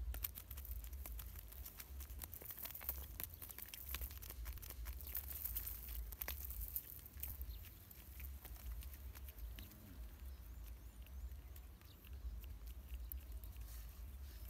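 Small fish flopping and pattering on dry, hard ground as a cast net and its chain weights are shaken out, a run of irregular light taps and rustles over a low steady rumble.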